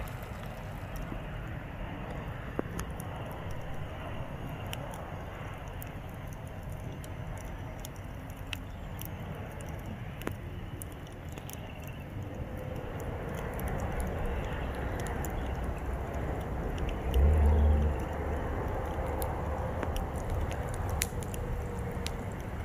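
Small campfire crackling faintly with scattered light pops over a steady low rumble. A faint steady hum comes in partway through, and a brief low thump sounds about seventeen seconds in.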